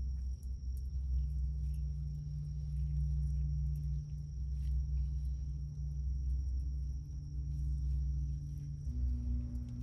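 A steady high-pitched insect trill, likely a cricket, over a loud low hum whose pitch steps slightly about a second in and again near the end, with a few faint light clicks.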